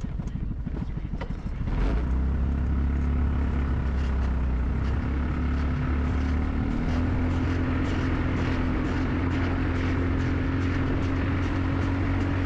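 A motor vehicle engine running: it is rough and uneven at first, then picks up and steadies about two seconds in, with its pitch rising slightly past the middle.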